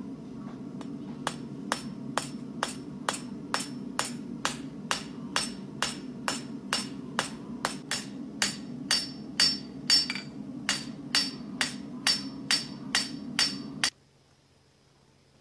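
Farrier's hammer shaping a red-hot steel horseshoe on an anvil: steady blows about two a second, starting about a second in, each with a bright metallic ring. A steady low hum runs underneath and stops abruptly with the last blow near the end.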